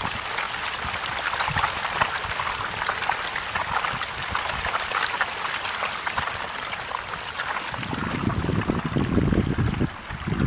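A dense crowd of small fish splashing and churning at the surface of a pond as they are fed: a steady crackling patter of many small splashes. Near the end a lower rumble rises for a couple of seconds and then drops away.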